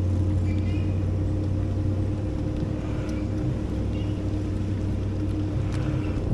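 A bass boat's four-stroke outboard motor running steadily at an even pitch.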